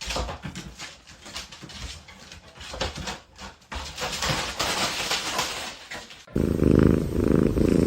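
A cat purring loudly, close up, starting abruptly about six seconds in. Before it there are scattered clicks and rustling.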